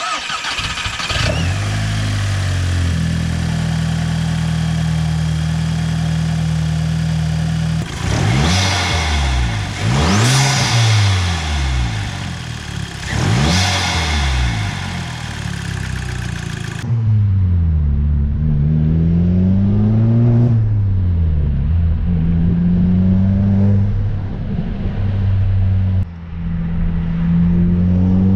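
Volkswagen Jetta Mk5 engine fitted with a K&N cone-filter cold air intake. It starts and idles steadily, then is revved three times, each rev rising and falling in pitch. Then, heard from inside the cabin while driving, the engine pitch climbs and drops repeatedly as it accelerates and shifts.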